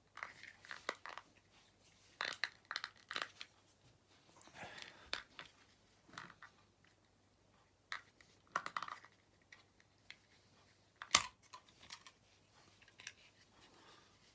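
Small plastic parts of a correction tape roller being handled and fiddled with: scattered clicks, scrapes and rustles, with one sharp click about eleven seconds in.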